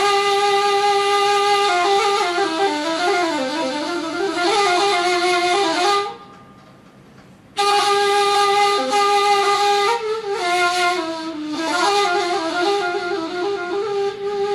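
Persian ney, an end-blown cane flute, played solo: a long held note gives way to winding melodic runs. A pause for breath of about a second and a half comes about six seconds in, then another held note and more ornamented runs.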